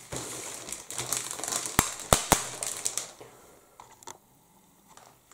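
Clear plastic bag crinkling as large plastic model-kit sprues are handled, with three sharp clicks about two seconds in. It turns much quieter after about three seconds, with only a couple of faint ticks.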